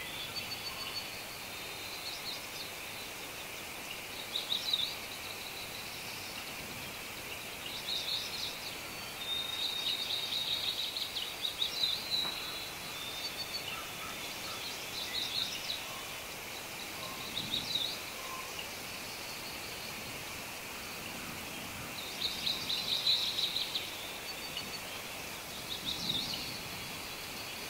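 Wild birds chirping in short trilled phrases every few seconds over a steady high hiss of outdoor background.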